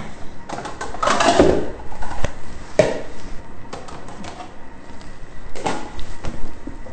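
Bowls knocking and clattering as they are taken out of a low kitchen cabinet shelf: a string of separate knocks with short pauses.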